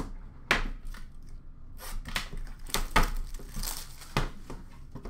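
Hands handling a sealed box of Upper Deck hockey cards: irregular crinkles and rustles of plastic wrap and cardboard with sharp taps, the loudest about three seconds in.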